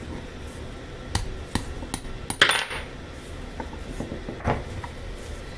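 A handful of small metallic clicks and clinks as a steel pin and a small bearing are worked in the rusty metal end cap of a pendant motor. The loudest clink comes about two and a half seconds in and rings briefly.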